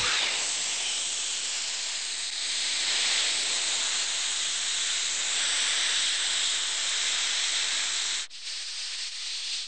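Cartoon sound effect of air hissing out of a leaking inflated air mattress as it jets along: a steady, loud hiss that breaks off for an instant about eight seconds in and then starts again.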